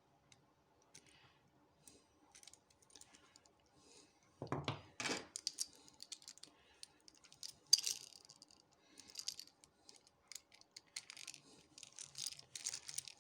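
Small metal clicks and rattles from a Union 5-pin rim cylinder and lock tools being handled as the lock is taken apart, with a double knock about four and a half seconds in and a sharp click near eight seconds.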